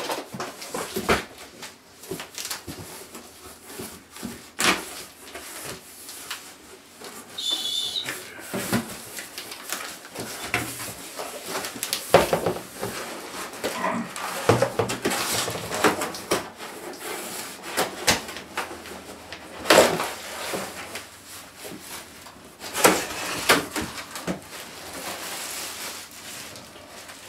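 Cardboard shipping box being handled and opened: irregular scrapes, rustles and knocks of cardboard flaps, then a plastic packing sheet crinkling near the end.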